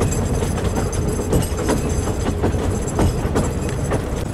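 Talyllyn Railway narrow-gauge carriage running along the line, heard from inside: a steady low rumble with frequent irregular knocks and rattles from the wheels and the carriage on the track.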